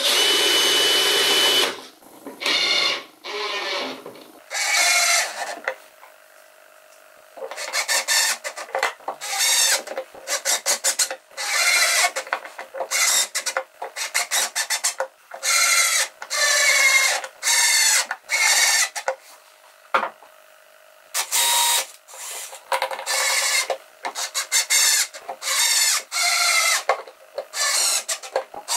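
Hand-worked rubbing or scraping strokes on pine wood, repeated in runs of short strokes with brief pauses between them. The first second and a half is a single continuous noise.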